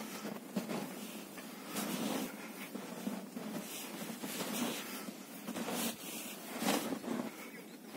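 Irregular soft crunching of footsteps in deep snow, roughly one crunch a second, over a steady hiss.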